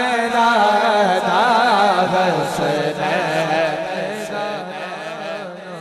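A man singing a naat, an Urdu-Punjabi devotional poem in praise of the Prophet, into a microphone in long, wavering, drawn-out phrases. The voice tapers off near the end.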